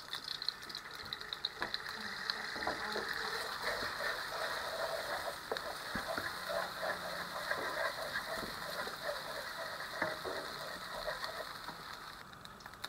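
Beaten egg sizzling and crackling in hot oil in a non-stick wok, with small irregular clicks and scrapes from a wooden spatula scrambling it; the sizzle eases off near the end.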